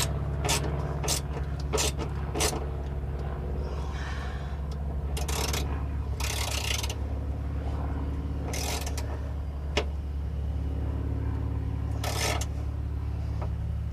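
Hand tools working on exhaust clamp hardware under a car: scattered metallic clicks and knocks, then several short scraping, rasping bursts. A steady low hum runs underneath.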